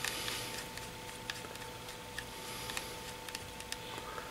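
Small scattered ticks and clicks of a precision screwdriver turning the tiny bottom pentalobe screws back into an iPhone 6, over a faint steady hum.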